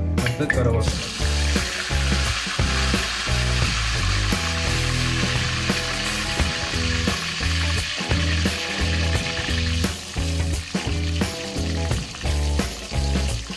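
Hot oil sizzling in a kadai as fenugreek seeds and leaves fry, strongest from about a second in and easing near the end. Background music with a steady bass line plays underneath.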